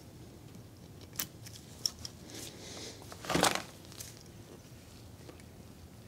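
Light handling of a grease gun whose coupler is clipped onto a freshly installed Zerk fitting on a steering pitman arm. It gives a few faint clicks, then one short, louder metallic rasp about three and a half seconds in.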